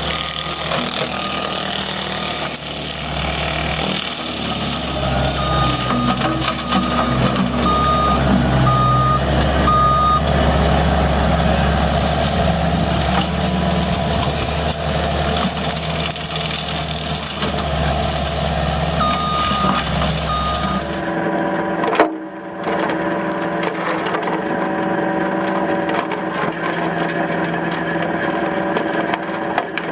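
Heavy machine's engine running, with a reversing alarm beeping in spells. About two-thirds of the way through the sound switches to a different machine with a steady whine, and there is one sharp knock just after the switch.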